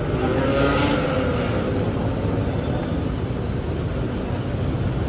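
Busy city road traffic: engines and tyres of passing cars, buses and motorbikes in a steady rumble, with a hiss that swells and fades about a second in.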